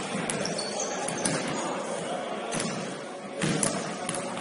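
Sounds of an indoor basketball game in a hall: scattered knocks and thuds of play over a steady background noise of the room, the loudest thud about three and a half seconds in.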